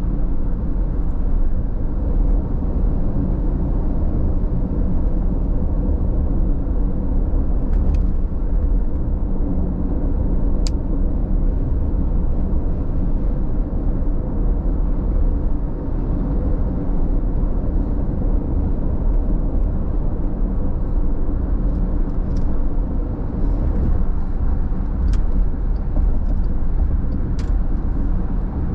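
A car driving at freeway speed, heard from inside the cabin: a steady deep rumble of road and tyre noise, with a few faint ticks.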